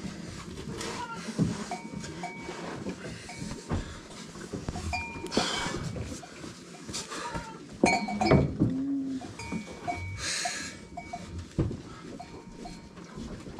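Goats bleating in a barn, with rustling and a sharp knock about eight seconds in.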